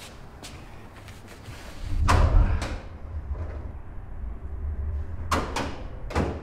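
Heavy metal clunks as the hood of a Buick Special hot rod is unlatched and worked: two about two seconds in and another pair near the end, each ringing briefly, over a deep low rumble.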